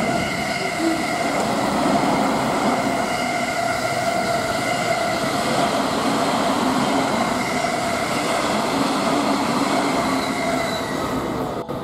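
Refurbished JR East E217 series electric train with Mitsubishi IGBT-VVVF running through the station at speed: a steady rush of wheels on rail, with steady high tones over it, until a sudden cut near the end.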